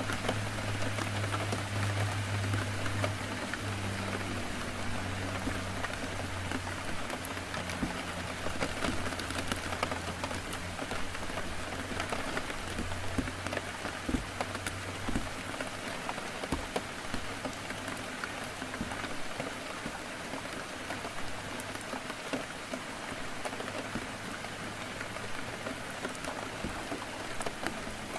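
Heavy rain on a window: a steady hiss with scattered drop ticks. Under it is a low hum that shifts in level and fades out about halfway through.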